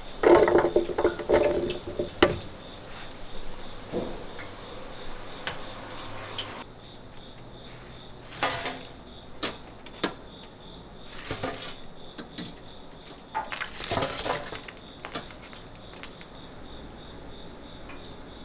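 Fried snail pieces tipped from a wire fry basket into a plastic container, clattering for about two seconds, then scattered knocks of a wire scoop and tongs against stainless steel food pans. A faint steady pulsing high tone runs under the later part.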